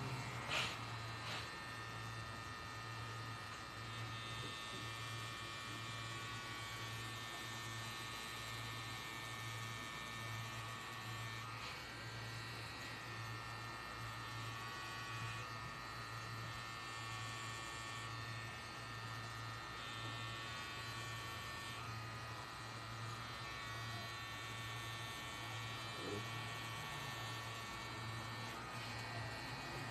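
Pen-style rotary tattoo machine running steadily as the needle works on the skin: a steady electric hum. A couple of sharp clicks come right at the start.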